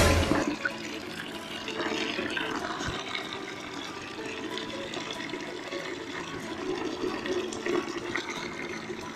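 A brief loud burst right at the start, then water running steadily from a tap and splashing into a container being filled.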